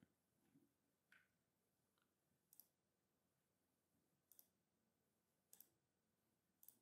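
Near silence broken by a few faint computer mouse clicks, two of them in quick succession about five and a half seconds in.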